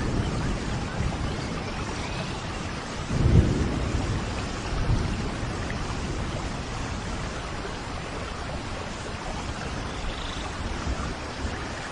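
Steady rain falling, with a low roll of thunder swelling about three seconds in.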